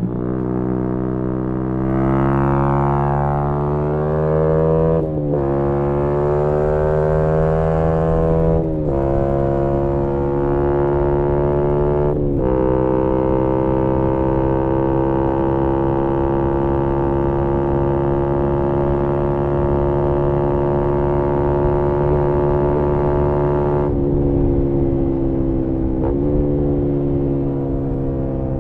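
A 2018 Yamaha MT-125's single-cylinder 125 cc four-stroke running loud through a GPR aftermarket exhaust under acceleration. Revs climb, broken three times by quick upshifts about 5, 9 and 12 seconds in. It then holds a steady note before the throttle closes and revs fall about 24 seconds in, with a short rev blip a couple of seconds later.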